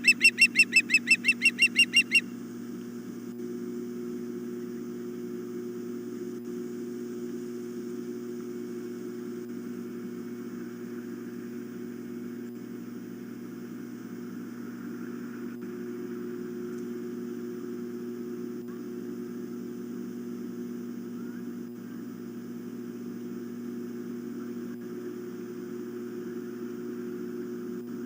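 Osprey calling a rapid string of high, piping chirps that stops about two seconds in. A steady low electrical hum with faint hiss runs underneath.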